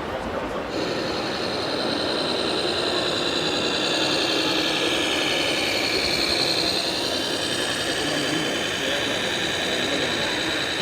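High whine of an RC model's electric drive or hydraulic pump motor, starting about a second in. It dips in pitch near the middle, as the motor slows under load, then comes back up.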